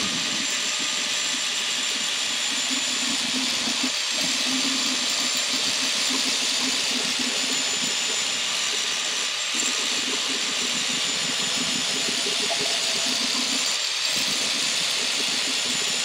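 Angle grinder running under load against the beveled edge of a 3/8-inch steel test plate, a steady high whine over the grinding noise, smoothing away saw marks on the bevel.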